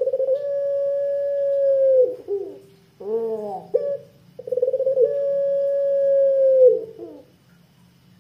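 A puter pelung, a Barbary dove bred for its voice, cooing with a deep, long 'kwook'. It gives two drawn-out coos, each held steady for about two seconds and dropping off at the end, with a short arched lead-in note between them about three seconds in.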